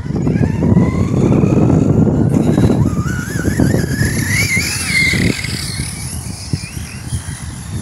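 Redcat Kaiju 6S brushless RC monster truck running flat out: the electric motor's whine rises in pitch and wavers about midway as the truck bounces across grass, over rough tyre and ground noise.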